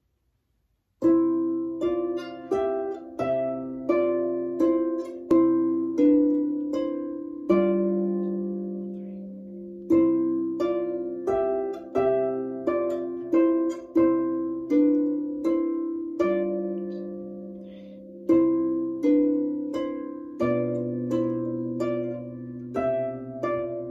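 Harp played with both hands: a simple tune of plucked notes over lower bass notes, each note ringing on and dying away, with a few longer held notes between phrases. The playing begins about a second in.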